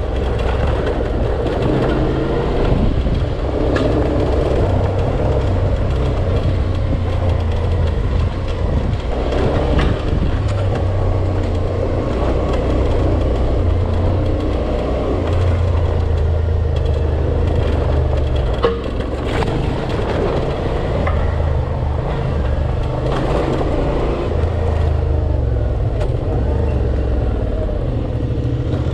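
Motorcycle engine running under way off-road, the revs rising and falling with the throttle, with a few sharp knocks along the way.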